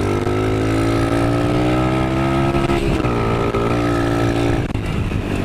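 Dirt bike engine revving hard under acceleration, its pitch climbing steadily, dropping sharply about three seconds in, climbing again, then falling away near the end as the throttle closes.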